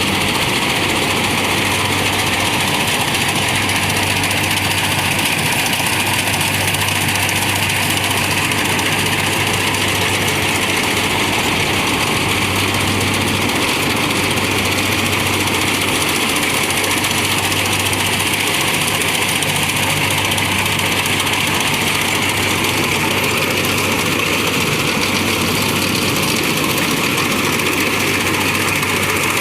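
Kubota rice combine harvester running steadily while it cuts and threshes: an even engine hum under a broad hiss, with no change in speed.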